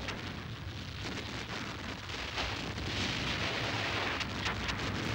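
Naval battle sound effects: a steady rushing, crackling noise over a low rumble, with a few faint cracks scattered through it and the rumble swelling slightly in the last two seconds.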